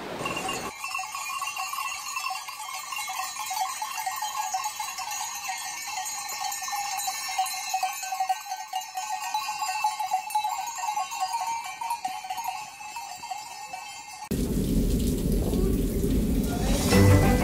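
Bells on the collars of a herd of goats clanking and ringing irregularly as the goats walk. About fourteen seconds in, the bells give way to the steady rushing noise of a waterfall and its falling spray.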